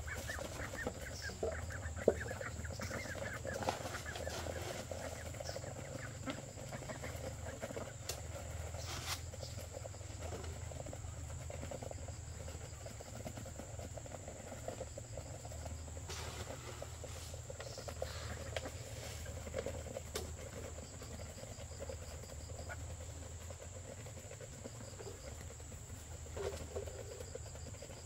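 A flock of ducklings feeding from a tray, with soft calls and pecking busiest in the first few seconds. A steady high-pitched insect drone runs underneath.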